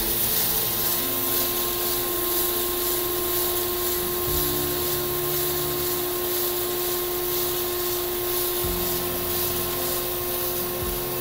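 Taber 5155 dual rotary platform abraser running: its motor gives a steady hum at one held pitch as the turntables spin the fabric samples against the abrasive wheels, with a steady hiss above it.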